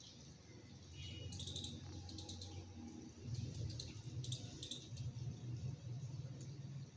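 Faint handling noise as a rough stone is turned over in the hand, with scattered clusters of short, high clicks and scrapes over a low rumble that grows louder partway through.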